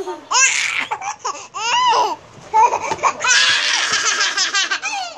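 Baby laughing in short, high-pitched bursts, with the longest and loudest run of rapid laughter starting about three seconds in.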